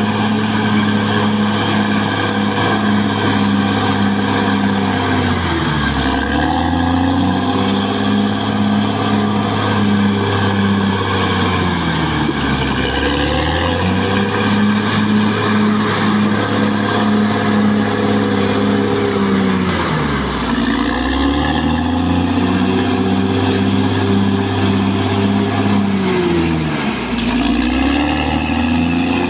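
Caterpillar D6R XL bulldozer's diesel engine running hard, its pitch dipping sharply and recovering four times, about every seven seconds.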